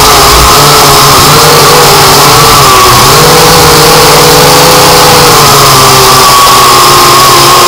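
A drone's motors and propellers whining loudly on its onboard camera's microphone, over a hiss. The pitch wavers, rising about three seconds in and sinking again a couple of seconds later as the throttle changes.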